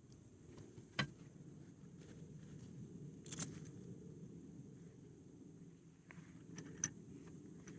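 Faint scrapes and three short knocks from hands digging sweet potato roots out of garden soil, over a steady low background rumble.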